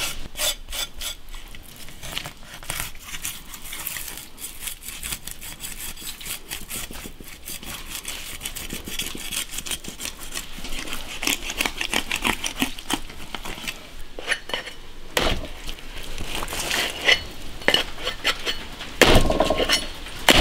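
Metal blade scraping the scales off a large bighead carp in quick repeated strokes, with a louder knock just before the end.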